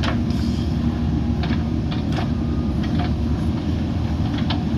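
JCB backhoe loader's diesel engine running steadily, with a few short, sharp knocks scattered through.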